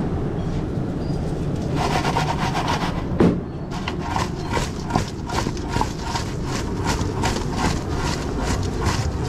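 Fried chips being tossed with seasoning in a stainless steel bowl, rattling against the metal in a steady rhythm of about three shakes a second, starting about two seconds in, with one louder knock just after three seconds. Under it a steady low hum.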